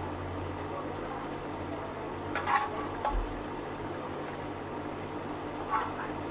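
Cooking in a pot: a steady low hum with a few brief utensil knocks and scrapes against the pot, about two and a half, three and six seconds in.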